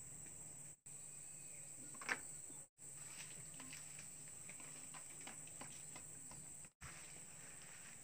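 Wire mesh clicking and scraping against a plastic paint bucket as it is pressed down inside, with one sharper click about two seconds in and a run of small ticks after it. A faint steady high hiss runs underneath, and the sound drops out briefly three times.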